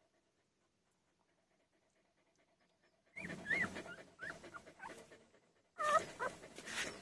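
Nursing puppies give short high squeaks and whimpers while suckling, mixed with a dog's panting. The sounds start about three seconds in and come in two spells.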